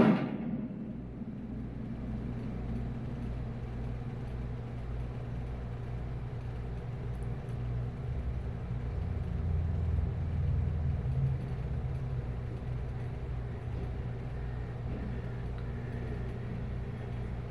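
A steady low rumbling drone that swells slightly about halfway through.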